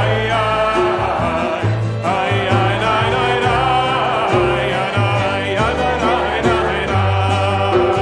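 A congregation singing a Hebrew Shabbat song together, many voices in sung phrases with short breaks between them, accompanied by a strummed acoustic guitar.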